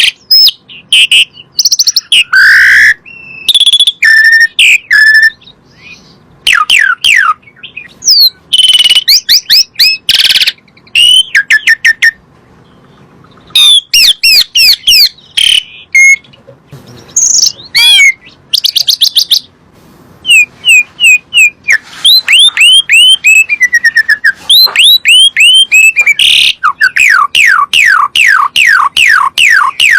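Jalak suren (pied starling) singing: a loud, varied string of whistles, rapid falling slurred notes and sharp clicks, in bursts separated by short gaps, with a longer pause about twelve seconds in.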